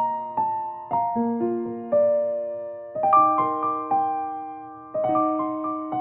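Background music: a slow, gentle piano piece, with chords struck about once a second and left to ring.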